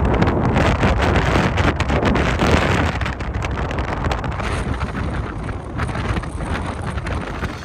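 Storm-force wind gusting hard against the microphone, a dense rushing roar with heavy low buffeting. It eases a little after about three seconds and starts to fade out at the very end.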